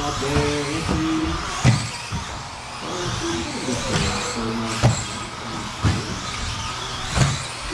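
1/10-scale electric RC buggies racing on an indoor carpet track: the motors and tyres run steadily, with four sharp knocks from cars landing or striking the track boards.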